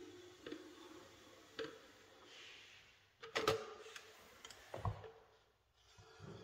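A manual caulking gun loaded with a silicone cartridge being handled: a few light clicks, then a sharp knock about three and a half seconds in as it is laid on the worktop, and a duller thump near five seconds.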